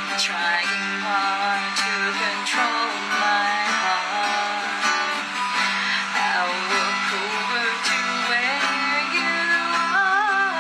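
Acoustic guitar strummed as accompaniment while a singer sings a slow melody over it, holding a wavering note near the end.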